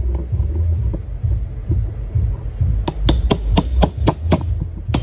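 Hammer blows on a steel punch set against the shaft of a CYC X1 Pro Gen 2 mid-drive e-bike motor, driving out the bearing. After some dull knocks from handling the motor on the bench, a quick run of about seven sharp, ringing metal strikes comes, roughly four a second, then one more strike near the end.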